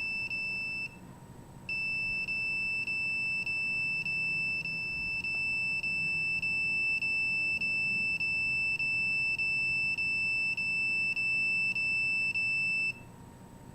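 Radio-frequency signal detector giving a steady high electronic alarm tone while a nearby cell phone downloads over Wi-Fi. The tone breaks off briefly about a second in, resumes with faint regular ticks, and cuts off abruptly near the end, when the download finishes.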